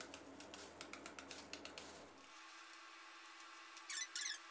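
Faint, quick taps of a kitchen knife chopping into a peeled unripe Nam Dok Mai mango held in the hand, shredding it into strips. About four seconds in come three louder short sounds.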